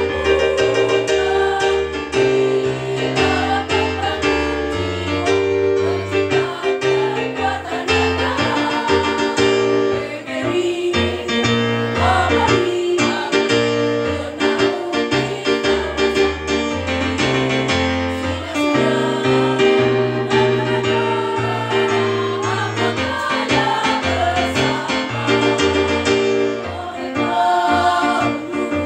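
Women's choir singing a song together, with an instrumental accompaniment holding steady low bass notes under the voices.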